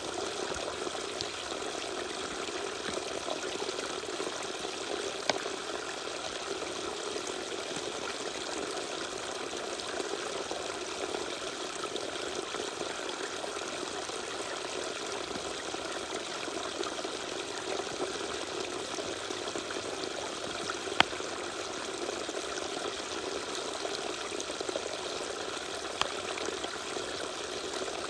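Small waterfall pouring and splashing steadily, with a few brief sharp clicks of dripping or splashing water.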